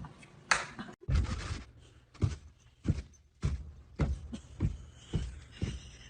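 A series of soft thumps or knocks, about two a second, somewhat uneven in spacing.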